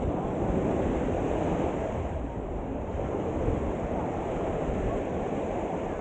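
Small ocean waves breaking and washing up a sandy shore, a steady rushing surf, with some wind rumbling on the microphone.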